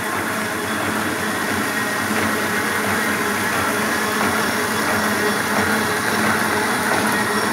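Carbonless collating machine for continuous computer forms running steadily: an even mechanical noise of rollers and moving paper webs over a low hum, growing slightly louder toward the end.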